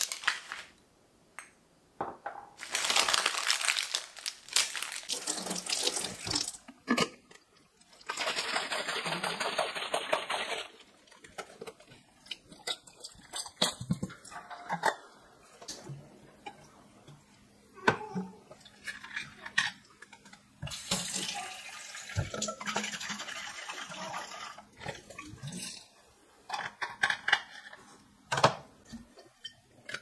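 Kitchen tap water running into a sink in three spells of a few seconds each as emptied glass jars and plastic bottles are rinsed, with short knocks and clinks of the containers being handled and set down in between.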